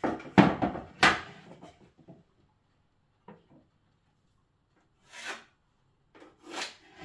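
Tools being handled against a wall while a level line is marked out: a cluster of loud scrapes and knocks in the first second, then two short rubbing strokes near the end.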